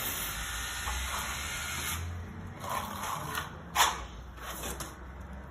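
Plastering trowel scraping skimming compound across a wall in several short strokes, the loudest about two-thirds of the way through. A steady hiss fills the first two seconds.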